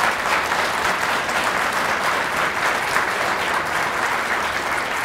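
Audience applauding: a steady, dense clapping of many hands at the close of a talk.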